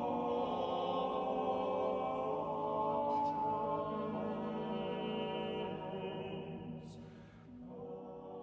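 Vocal ensemble singing sustained, slowly moving chant-like polyphony in several voices, a passage of quint-organum (voices moving in parallel fifths). The sound thins out about seven seconds in, then new held notes enter.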